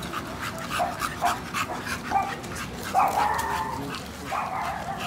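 American Bully dogs panting hard in quick repeated breaths, with a few short, soft vocal sounds from the dogs.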